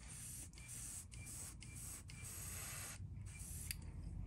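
Airbrush spraying paint in light passes: a soft hiss broken by brief pauses, which stops about three seconds in.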